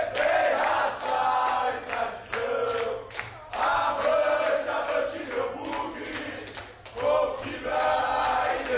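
A crowd of football supporters chanting a song in unison, with sharp beats about twice a second. The loud sung phrases break off briefly a few times.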